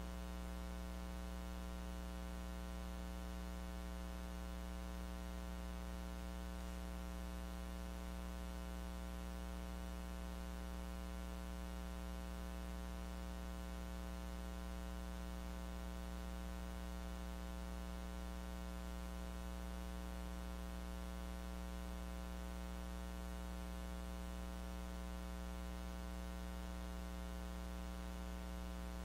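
Steady electrical mains hum with a ladder of even overtones over a faint hiss, and no voice. The lecture's audio was not recorded, leaving only the hum of the recording line.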